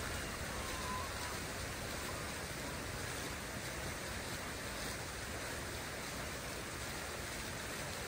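Water fountain splashing: a steady, even rush of falling water.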